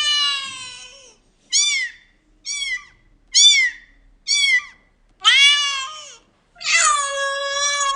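Domestic cat meowing repeatedly, about seven meows: a long one at the start, four short ones in the middle, and two longer drawn-out ones near the end.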